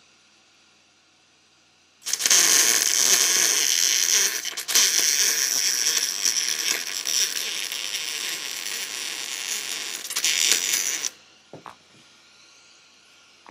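MIG welder arc crackling steadily as a bead is laid on the sheet-steel body, starting about two seconds in with one brief break, and cutting off about eleven seconds in.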